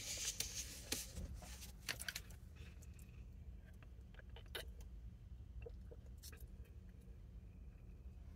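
Faint handling noises inside a car: small clicks and paper rustles, busiest in the first two seconds, over a low steady hum.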